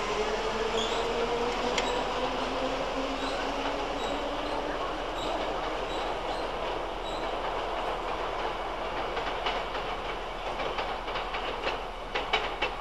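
London Underground D stock electric train pulling away from the platform. Its traction motors whine, slowly rising in pitch as it accelerates, and its wheels click over the rail joints. The sound grows fainter as it draws away.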